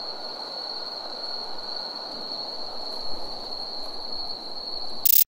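Night ambience: crickets trilling steadily on one high note over a low, even rush of background noise. Near the end a short burst of noise, then the sound cuts off abruptly.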